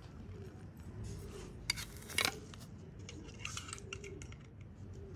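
A white plastic display stand being fitted to a hollow plastic model airliner by hand: two sharp plastic clicks about two seconds in, the second louder, then light scraping and handling of the plastic parts.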